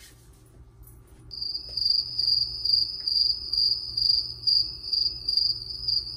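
Cricket chirping sound effect, a steady pulsing high chirp that cuts in about a second in: the stock comedic cue for an awkward silence.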